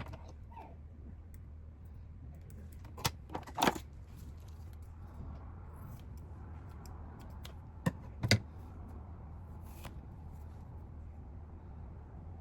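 Short clicking rattles from handling materials for a doll's weighting pouch, in two brief clusters, about three seconds in and again about eight seconds in, over a steady low hum.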